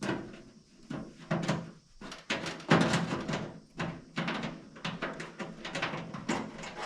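Irregular clicks and knocks of metal parts being handled and fitted, some with a short ring.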